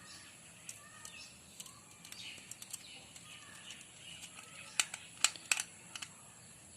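Sharp plastic-and-metal clicks and small knocks from a power socket and its wires being handled during wiring, with a cluster of louder clicks near the end.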